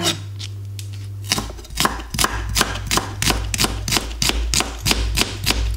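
Kitchen knife slicing shallots on a plastic cutting board: a quick, even run of chops, about four or five a second, starting about a second in.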